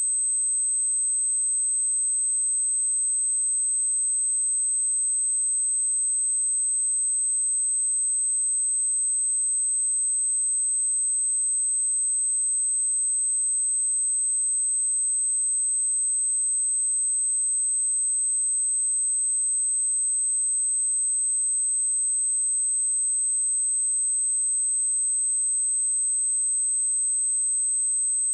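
A pure 8218 Hz sine-wave test tone: one steady, unchanging high-pitched whistle.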